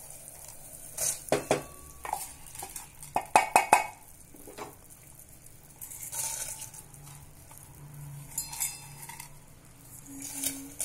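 Metal clinks and knocks of a steel bowl and spoon against an aluminium pressure cooker as soaked basmati rice is tipped and scraped into it: a run of sharp clinks, loudest about three and a half seconds in, then a few scattered ones.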